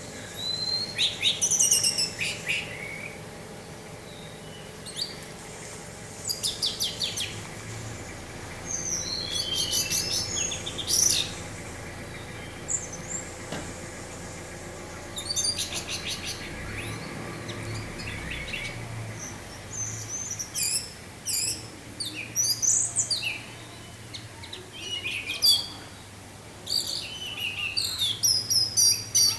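Orange-headed thrush singing in its full 'teler' form, a string of short bursts of rapid, varied, high notes with brief gaps between them, over a steady low hum.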